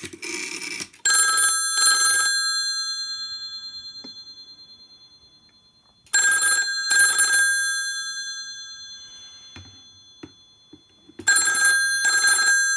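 Bells of a Western Electric 500-type rotary desk telephone ringing in a double-ring cadence from a Panasonic 308 PBX. There are three pairs of rings about five seconds apart, each pair leaving a long, slowly fading ring.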